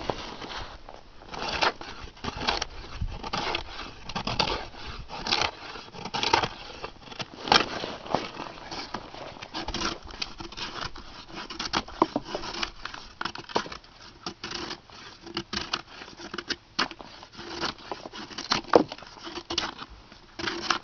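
A G-10 and titanium composite knife shaving and cutting a wooden board: a string of short, irregular scraping cuts, roughly one or two a second, some with a sharp crack as curls of wood come away.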